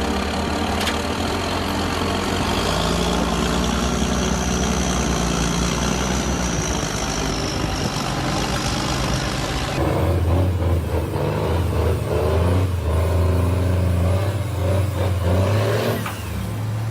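Heavy truck engines running and revving under load. About ten seconds in the sound cuts to a deeper, louder engine drone with irregular clattering.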